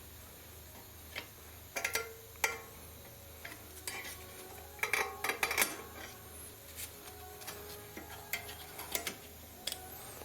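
Flat-head screwdriver prising the brake pad retaining spring out of a front brake caliper: scattered metallic clicks, clinks and short scrapes, in clusters about two seconds in, around five seconds and near the end.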